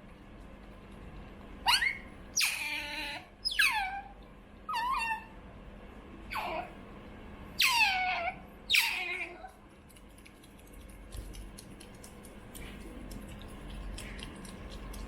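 Pet otter begging for food with high, squeaky calls that slide steeply downward in pitch, about seven in quick succession, stopping after about ten seconds.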